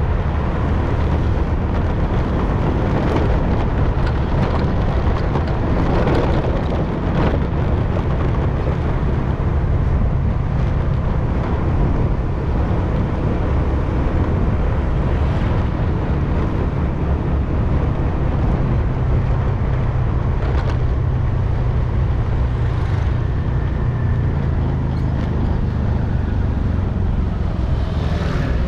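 Motorcycle engine running at a steady cruise with road and wind noise while riding. Near the end another motorcycle passes close by.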